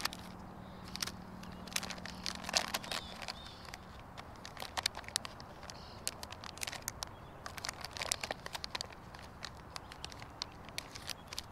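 Plastic lure packaging being handled, crinkling and rustling in irregular clicks and crackles.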